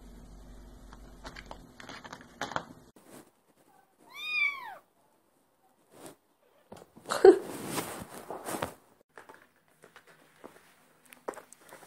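Domestic cat giving one meow about four seconds in, rising then falling in pitch. Scattered clicks and rustles run through the rest, with a louder, harsher noisy burst from about seven to nearly nine seconds in.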